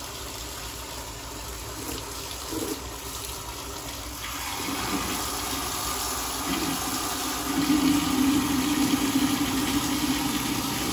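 Water running from a tap into a basin, a steady rushing splash with a low hum under it, getting louder about two-thirds of the way through.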